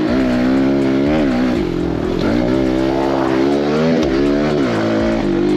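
Pit bike engine running under way, its pitch rising and falling several times as the throttle is opened and eased off.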